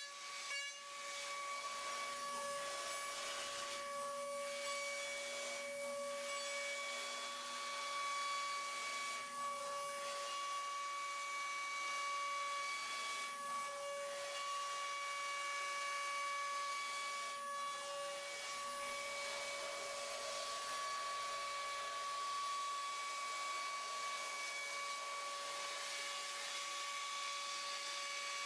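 DATRON M8Cube high-speed machining center's spindle whining at a steady pitch while milling, over a hiss of cutting noise, with brief dips in the tone now and then.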